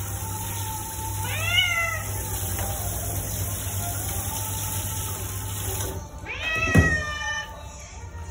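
Domestic cat meowing twice, with drawn-out rising-and-falling calls, while being bathed. It starts over the steady hiss of a handheld shower spray on its coat, and the spray shuts off about six seconds in, just before the second call.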